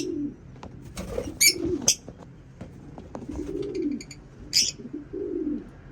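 Low, drawn-out dove-like coos, about four of them, mixed with a few short, sharp, high chirps from lovebirds, the loudest chirps about a second and a half in and again past the four-second mark.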